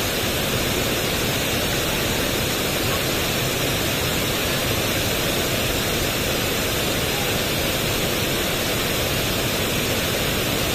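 Wide, tiered waterfall pouring over a long ledge: a steady, unbroken rush of falling water.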